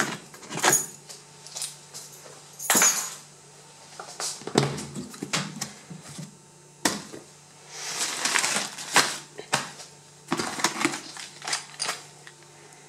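Padlocks and latches on a hard plastic carry case clicking and knocking as they are undone and the lid is opened, followed by plastic bags and padded envelopes rustling as the contents are handled.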